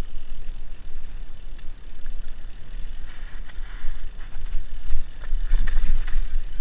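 Mountain bike rattling and clattering over a rough dirt singletrack, with wind buffeting the handlebar-mounted camera's microphone as a steady low rumble. The knocks and rattles come thicker about five to six seconds in.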